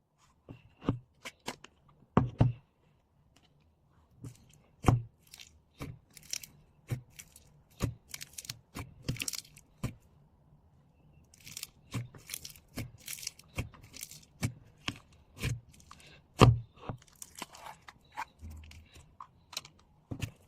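Crunchy foam slime squeezed and pressed by hand, giving irregular sharp crackles and pops, a few a second, with bursts of finer crackling.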